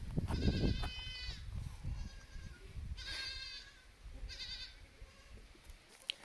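Domestic goats bleating: one long wavering call that drops in pitch at its end, then two shorter calls, over a low rumble near the start.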